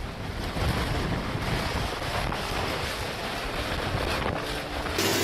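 Strong storm wind blowing in gusts, buffeting the microphone.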